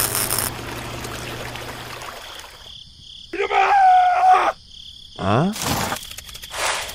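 Cartoon-style voice effects for a toy character: a short pitched, wavering exclamation about three seconds in, then a quick rising whoop about five seconds in, followed by two brief swishes. A steady low hum fades out over the first two seconds before them.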